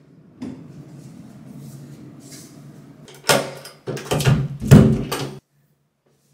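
Door with a stainless lever handle and thumb-turn lock being worked. There is a sharp clunk about three seconds in, then a second or so of rattling clunks that cuts off suddenly.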